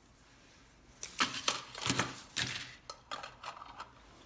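Small metal clinks and clatter from handling metal pieces, a quick cluster beginning about a second in and tapering off into a few fainter clicks.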